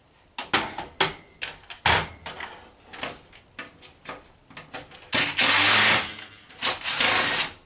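Red cordless drill with a screw bit backing screws out of a metal computer case: a run of metal clicks and knocks, then two loud runs of the drill, one about five seconds in and a second near the end.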